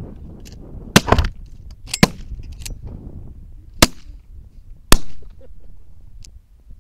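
Shotguns firing at geese: a volley of four or five loud shots roughly a second apart, the last one loudest, with a short echo after it.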